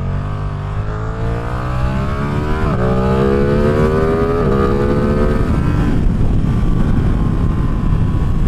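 Ducati Streetfighter V2's V-twin engine accelerating hard through the gears, its note rising and dropping with two quick upshifts about two and a half and four and a half seconds in. After about six seconds the engine note gives way to steady wind noise.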